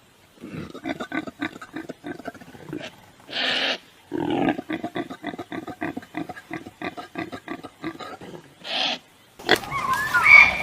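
A large animal grunting in a fast run of short grunts, several a second, broken by two louder harsh snorts. Near the end a different animal call with high gliding chirps starts.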